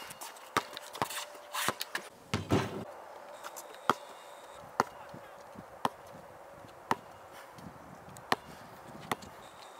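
Basketball bounced on a concrete driveway: single sharp smacks about once a second. A denser run of knocks comes in the first three seconds.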